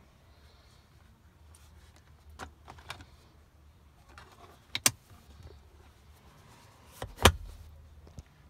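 Plastic clicks and knocks from a car's rear-seat centre armrest as its pop-out cup holder is pulled open: a few light clicks, a sharp double click about halfway through, and a heavier knock with a thud near the end, the loudest sound.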